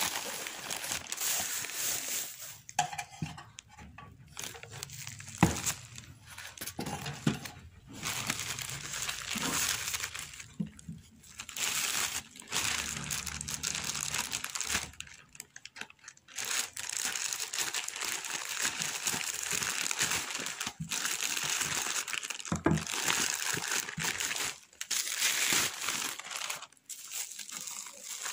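Plastic packaging crinkling and rustling in irregular bursts as a parcel is unwrapped: an orange plastic mailer bag, then bubble wrap.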